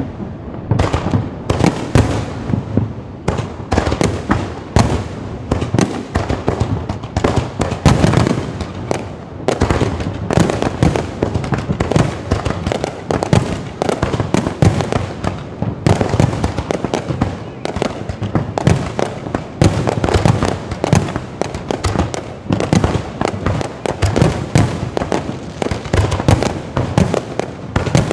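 Firecrackers going off in a rapid, irregular crackle of sharp pops, several a second, without let-up.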